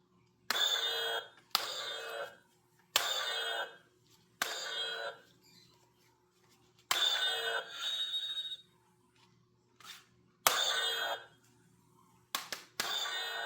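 A toy sword's built-in electronic sound effects, played through its small speaker: a series of about eight short bursts, each about a second long, with brief quiet gaps between them.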